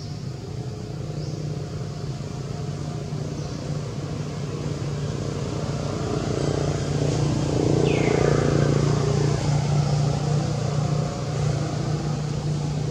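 Steady low engine hum, like a motor vehicle running nearby, swelling to its loudest about eight seconds in and easing a little after. A short falling chirp sounds at the loudest point.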